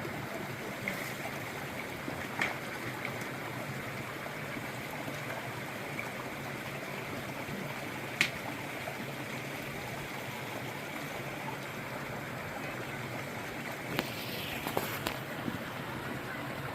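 Water of a stream running steadily, with a few brief sharp clicks.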